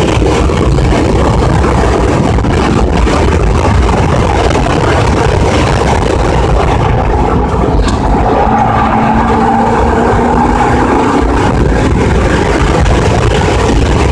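Car engine, wind and road noise at track speed, heard from inside the car, loud and steady. A faint steady whine rises over it for several seconds midway through a turn.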